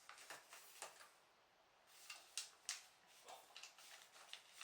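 Faint, scattered clicks of plastic LEGO bricks being handled and sorted, a few light taps about a second apart.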